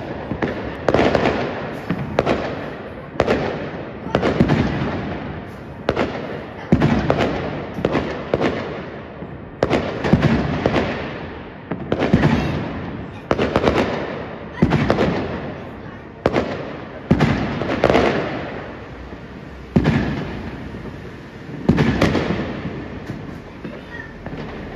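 Aerial fireworks bursting overhead: a loud bang about every second or so, each followed by a rumbling echo that dies away.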